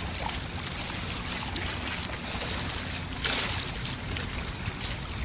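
Footsteps scuffing along a dirt path over a steady low rumble of wind on the microphone, with one louder scrape about three seconds in.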